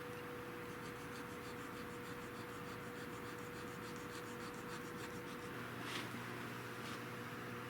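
Hand checkering tool scraping across a wooden gunstock in quick, even strokes, several a second, cutting checkering lines. The strokes stop a little past the middle, followed by two light clicks.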